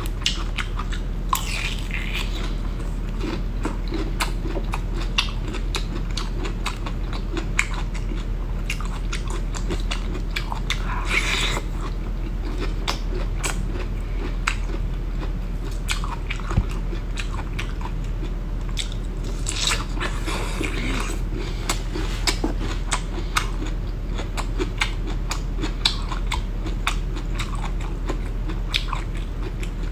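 Close-miked chewing and biting of bamboo shoot, with many small crisp clicks and a few longer tearing sounds as the fibrous layers of the shoot are pulled apart.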